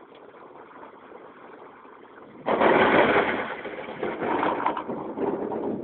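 Thunder: a sudden loud clap about halfway through that rolls on unevenly for about three seconds, then fades. Before it there is only a faint steady hiss.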